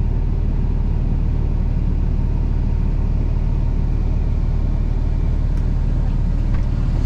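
Steady low engine and road drone of a vehicle driving, heard from inside the cab.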